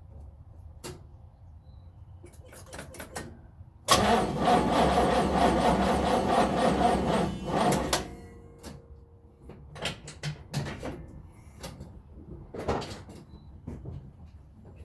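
1970 Chevy Nova SS's 350 V8 being turned over by its starter for about four seconds, starting suddenly about four seconds in and then stopping without the engine catching: a no-start on the first cold crank after months of sitting. Light clicks and knocks come before and after.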